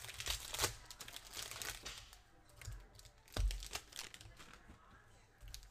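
Plastic trading-card pack wrapper being torn open and crinkled by hand, in quick crackly rustles, with a dull thump about three and a half seconds in.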